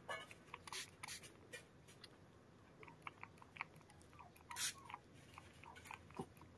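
Faint handling sounds of a small deworming-treatment bottle being worked against a kitten's fur: scattered small clicks and rustles, with a short hiss about four and a half seconds in.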